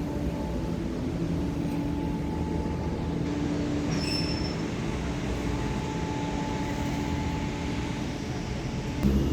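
A vehicle running with a steady low rumble and hum, with a brief high squeal about four seconds in.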